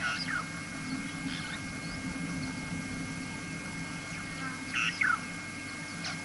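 Wild birds calling: a few short, sharp calls that drop in pitch, the loudest pair about five seconds in, over a steady low hum.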